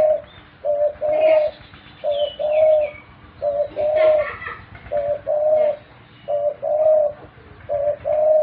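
Pet dove cooing over and over in a steady rhythm, each call a short note followed at once by a longer one, about six calls in all.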